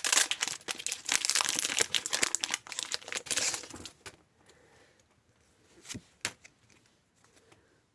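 Foil booster-pack wrapper crinkling and tearing open for about four seconds, then it goes quiet apart from a couple of sharp clicks.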